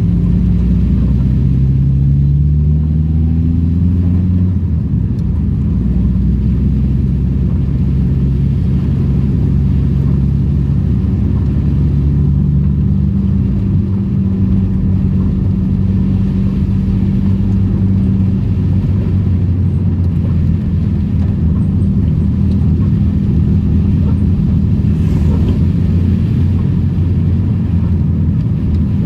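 Daihatsu Charade engine running while being driven. The engine note climbs over the first few seconds as it accelerates, then holds at a steady cruising pitch.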